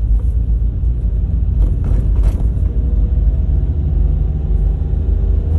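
Steady low rumble of a car's engine and tyres heard from inside the cabin while driving slowly, with a few light clicks about two seconds in.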